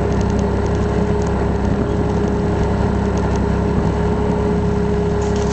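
A 1975 skid loader's engine running at a steady speed as the machine travels, heard close from the operator's seat, with a steady high hum over the engine.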